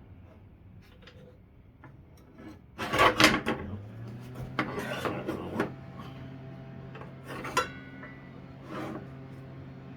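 Scraping, rubbing and clunking of parts on a table saw being handled and adjusted by hand, in several short bursts, the loudest about three seconds in. A steady low hum starts about four seconds in.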